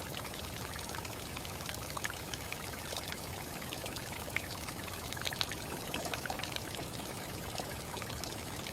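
Steady rain on a tin roof: an even hiss of rainfall with scattered sharp ticks of single drops striking the metal.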